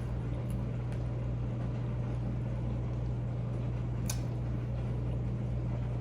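A steady low hum, with a few faint short clicks of eating and one sharper click about four seconds in.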